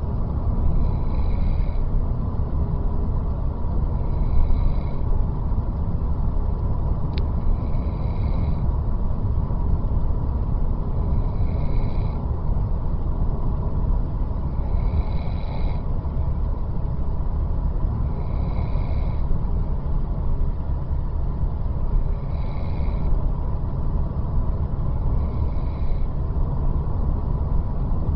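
A person snoring, one breath about every three and a half seconds, over a steady low rumble.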